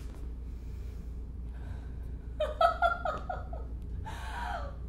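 A woman laughs, a quick run of short bursts about halfway through, falling in pitch, then a second, drawn-out laugh near the end.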